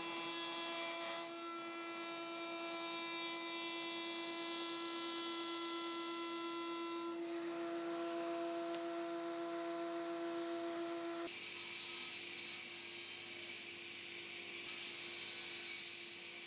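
Router in a router table running with a steady whine as a strip of wood is fed along the fence past the bit. About eleven seconds in it gives way to a sliding table saw running, with two short cuts through small wooden blocks.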